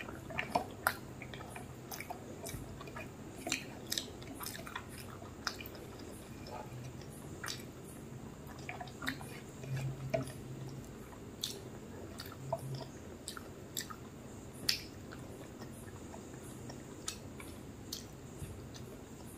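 A person eating close to the microphone: wet chewing with irregular mouth clicks and smacks, a few each second.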